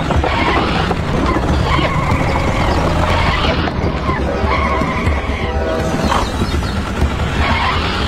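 A motor running loudly with a steady low hum, mixed with rough, gritty noise, as a toy tractor's spinning cone drill churns through sand.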